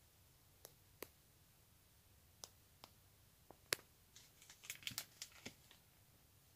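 Near silence with faint scattered clicks and taps of handling, the loudest a little under four seconds in and a quick cluster of them from about four to five and a half seconds in.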